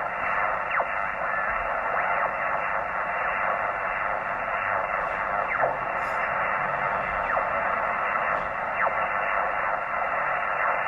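Yaesu HF transceiver's receiver audio as the dial is tuned up the 20-metre band: a steady hiss of band noise, crossed now and then by faint whistles of signals that fall in pitch as they are tuned past. This is the band's background noise floor with the powerline adapters unplugged.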